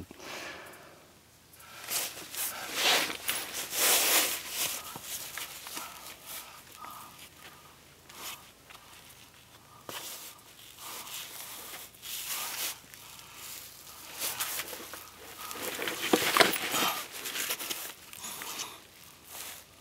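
Irregular rustling and scuffing: gear and clothing being handled and footsteps on the ground, louder about four seconds in and again around sixteen seconds in. No shot is heard.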